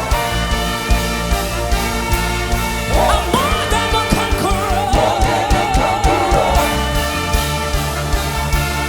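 Gospel praise music with a steady drum beat and a singing voice that holds a wavering note in the middle.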